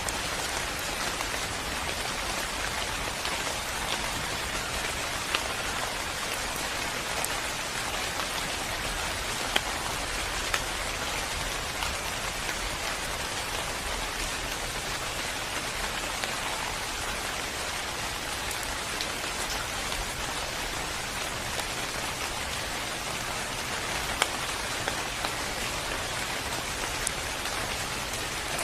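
Steady rain falling: an even hiss, with a few louder single drops ticking sharply now and then.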